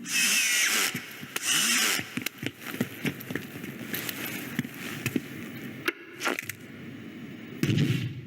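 A string of cartoon sound effects in quick succession: two loud hissing whooshes in the first two seconds, then a run of clicks and knocks, and a short low burst near the end.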